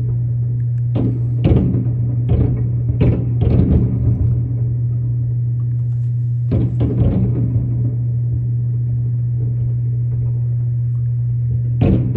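Aerial fireworks shells bursting in a string of sharp booms: a quick cluster in the first four seconds, a few more about six and a half seconds in, and another volley starting near the end. A steady low hum runs underneath.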